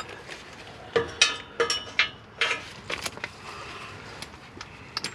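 Metal hand tools, sockets and spanners, clinking and clanking against each other and metal in an irregular series of sharp, ringing knocks.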